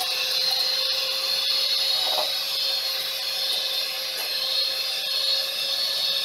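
Electric hand mixer running steadily at speed, its beaters whipping soft butter in a plastic bowl, with a constant motor whine.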